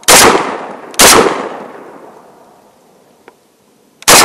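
Panzer BP-12 Gen2 gas-operated semi-automatic 12-gauge shotgun firing 2¾-inch 00 buckshot: two shots about a second apart, then a third after a pause of about three seconds, each ringing off in a decaying echo. The gun is cycling every round cleanly, with no failure to feed or eject.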